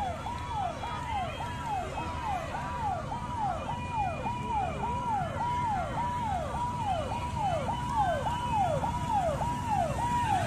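A siren sounding a fast repeating falling tone, about one and a half to two sweeps a second, over the low running of several motorcycles passing in a parade formation.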